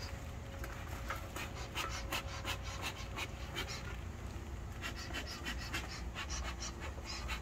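Bee smoker bellows pumped in quick puffs, a rapid run of short breathy whooshes about three a second with a brief pause midway, smoking the hive to calm the bees before it is opened.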